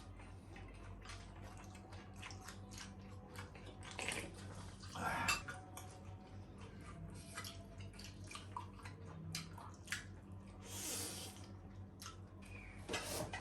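Eating sounds close to the microphone: chewing and wet mouth clicks from eating saucy spare ribs and rice, irregular and small, with a couple of louder slurping bursts. A low steady hum runs underneath.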